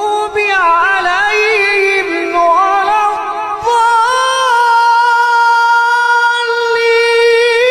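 A single voice chanting Arabic recitation in a melodic, ornamented style. It winds through several turns, then holds one long note from about four seconds in.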